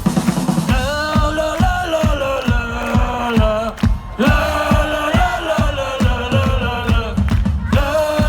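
Music with a steady drum beat, about two hits a second, under a sung melody. The singing breaks off briefly just before the middle and again near the end.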